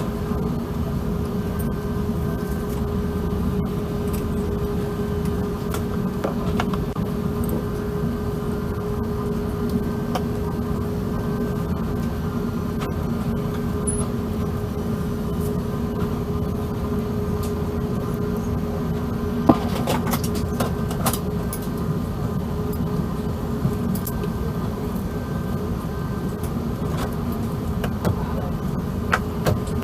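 Steady cabin drone of an Airbus A380 with Rolls-Royce Trent 970 engines at low power, heard from inside the passenger cabin: a low rumble with a steady hum over it. A few light clicks and knocks come about two-thirds of the way through.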